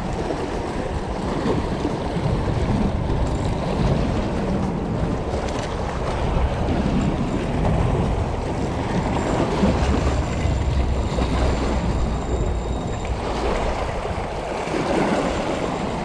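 Waves washing and breaking against shoreline rocks, with wind buffeting the microphone as a low rumble that rises and falls.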